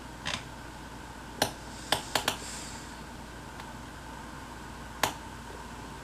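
About six sharp clicks, irregularly spaced, with several bunched together about two seconds in, over a faint steady hum.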